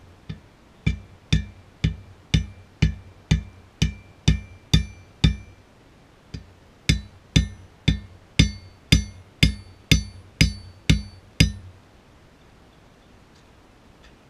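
Hand hammer striking down on the end of an upright hot metal bar standing on an anvil, each blow ringing. About two blows a second in two runs of about ten, with a short break in the middle, stopping a few seconds before the end.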